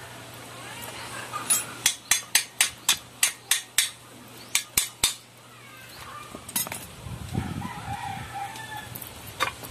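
Quick metallic hammer strikes on a steel part: a run of about nine at roughly four a second, then three more and a single one. Near the end a rooster crows once.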